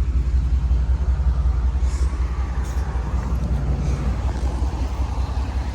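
A vehicle engine idling: a steady low rumble with an even pulse.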